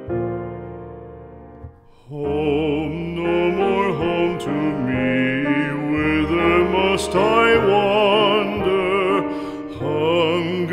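Background music: a piano chord rings and fades, then about two seconds in a slow song starts, with a singing voice over piano accompaniment.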